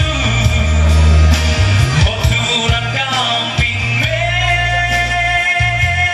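Male vocalist singing live through a handheld microphone and PA over amplified backing music with a heavy bass line. He holds one long note from about four seconds in.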